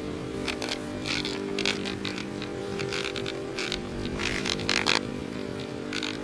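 A small engine running steadily, with short bouts of rustling noise every second or so.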